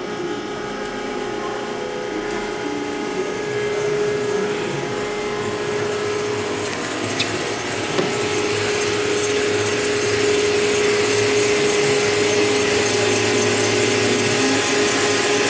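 Cleveland MKEL-60-T tilt kettle mixer's Sweet Fold agitator running in the empty kettle, its drive and turning scraper blades making a steady mechanical hum. It grows louder about ten seconds in.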